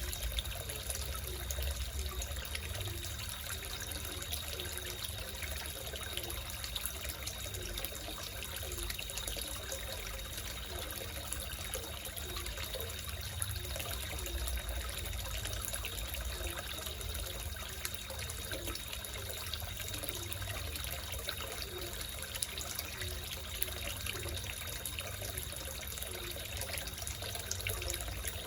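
Water splashing and trickling steadily into a small koi fish pond, with a thin steady high-pitched tone running underneath.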